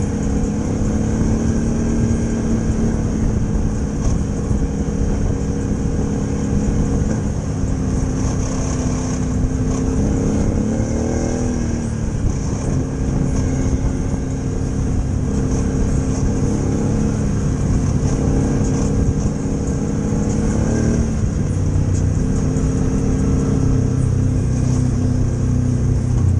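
Motorcycle engine running steadily. Its pitch dips and climbs back once about eleven seconds in and again about twenty-one seconds in.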